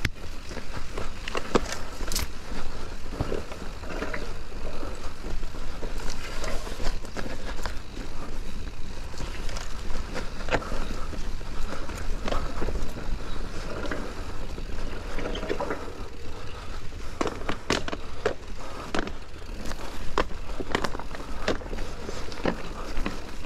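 Sunn Shaman XC S2 mountain bike ridden over a rough track: a steady rumble of the tyres with frequent clicks and rattles from the bike.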